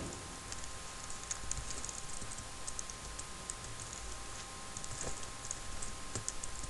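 Computer keyboard typing: short, irregular keystrokes as a few characters are changed.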